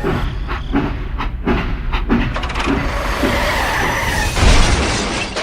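Small motor of a miniature model construction vehicle running steadily, with a mechanical clatter that swells briefly near the end.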